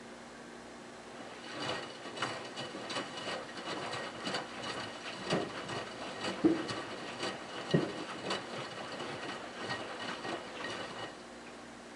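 Miele Touchtronic W3033 front-loading washing machine tumbling its load in the wash: the drum starts turning about a second and a half in, and the wet cotton blanket and sudsy water slosh and splash with uneven knocks, two of them louder, over the motor's hum. It stops again about a second before the end, a pause in the wash rhythm.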